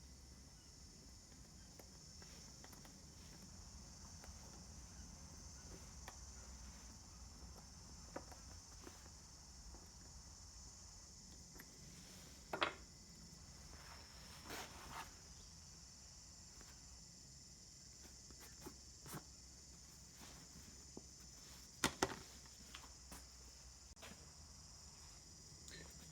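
Faint, steady, high-pitched insect chirring, with a low hum underneath. A few light clicks and knocks come about halfway through and again later.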